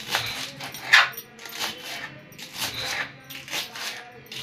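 Kitchen knife chopping spring onions on a plastic cutting board: irregular crisp cuts and taps, roughly one or two a second, the loudest about a second in.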